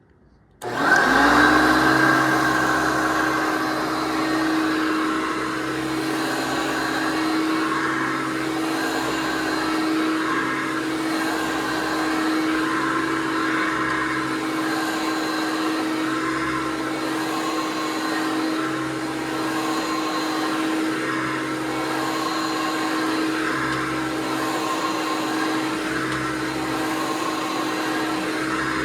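1993 Hoover PowerMax upright vacuum cleaner switched on less than a second in, its motor spinning up quickly and then running steadily.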